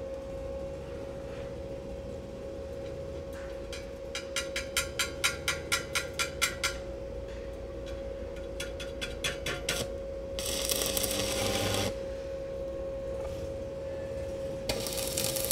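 Stick welding with a 2.5 mm electrode on an ANDELI MIG-250ME inverter welder in MMA mode: the electrode is tapped on the steel in a quick run of sharp crackling clicks, about five a second, to strike the arc, then the arc catches and sizzles for about a second and a half, and strikes again near the end. A steady whine from the running welder sits underneath.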